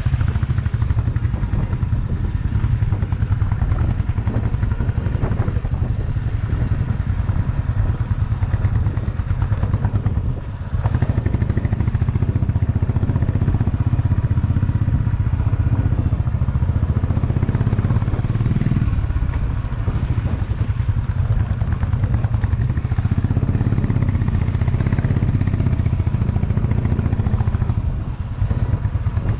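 Royal Enfield Bullet's single-cylinder engine running steadily as the motorcycle is ridden along a rough gravel mountain road. Its level drops for a moment about ten seconds in and again near the end.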